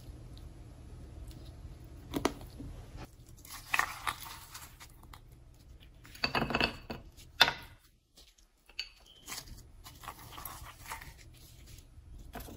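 Gloved hand handling raw meat and setting pieces down on a plate: scattered rustles, soft slaps and light clinks, loudest a little past the middle, over a low steady hum that drops out briefly just after the middle.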